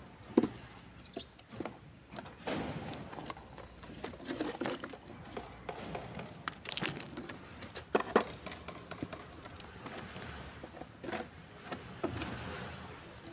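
Wooden formwork boards being handled and knocked into place around a concrete column footing: scattered sharp knocks and scrapes at irregular intervals, with a few light hammer taps.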